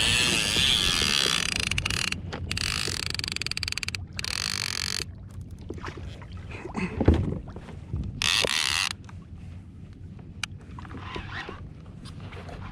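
Conventional fishing reel ratcheting with rapid clicking in bursts: two runs of about two seconds each at the start, then a shorter one about eight seconds in.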